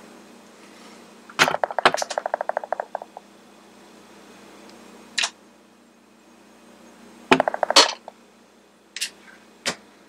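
Clicks and clatter from handling a soldering iron and wires on a workbench: a burst of sharp clicks running into a quick even rattle about a second and a half in, a single click, another short burst of clicks, and two light ticks near the end.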